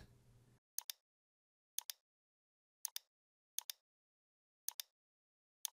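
Computer mouse clicking about once a second, six clicks in all, each a quick press-and-release pair of ticks, over dead silence.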